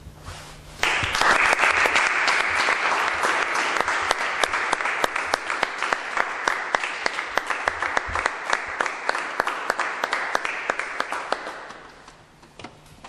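Audience applauding, breaking out about a second in and dying away near the end.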